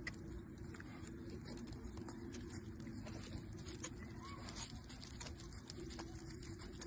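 Horse walking on dry stubble: hooves crunch and rustle the straw in many light, irregular steps, over a low steady rumble.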